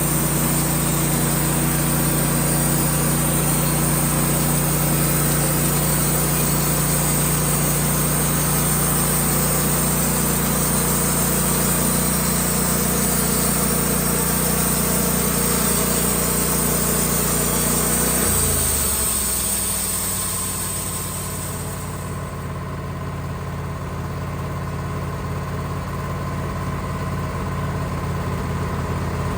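Bandsaw mill engine running steadily at working speed with a high hiss over it. About two-thirds of the way through, the engine drops to a lower idle, and the hiss dies away a few seconds later.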